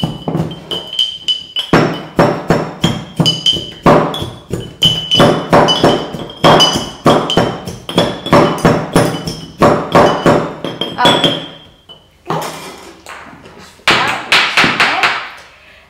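Whisk handles pounding lime, mint and sugar in glass mason jars to muddle them, a rapid run of dull clunks and glass clinks, several a second. The pounding stops about twelve seconds in, and another short flurry of knocks comes near the end.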